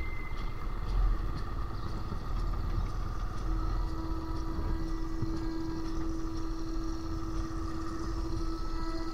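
Motorcycle engine running while riding, with wind rumble on the microphone. A steady engine note settles in and holds from about a third of the way in.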